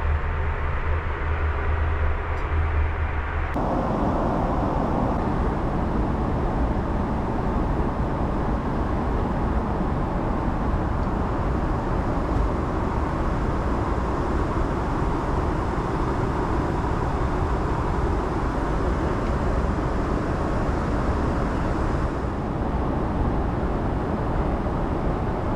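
Steady rush and low rumble of a jet airliner heard from inside the cabin. The character of the noise changes abruptly about three and a half seconds in.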